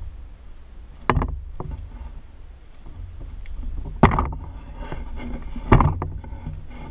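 Footsteps on wooden deck boards: four heavy knocks at uneven spacing, over a steady low rumble.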